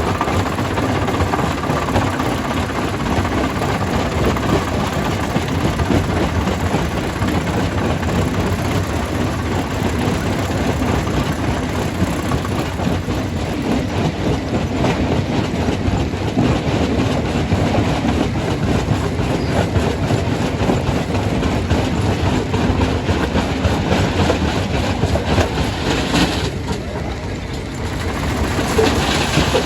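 Stone crusher running and crushing rock: a steady mechanical din with dense rattling and knocking of stone. It eases briefly near the end.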